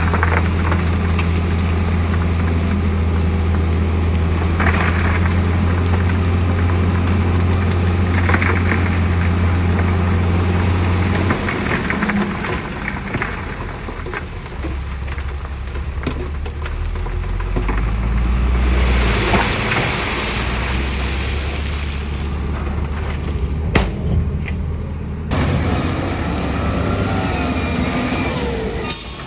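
Heavy diesel earthmoving machinery running with a steady low drone, which shifts to an uneven rumble about eleven seconds in, with scattered clanks and knocks.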